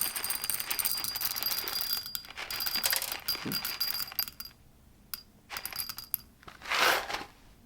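Whole coffee beans poured into a small cup, a dense pattering rattle that stops about four and a half seconds in, followed by a few single bean clicks.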